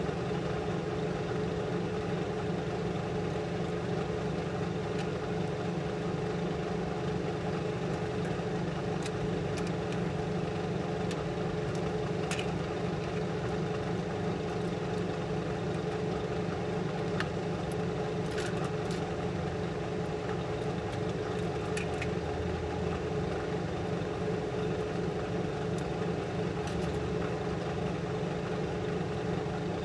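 Steady hum of a clean-room flow-hood blower fan, with a few light clicks and taps from a hard drive and tools being handled.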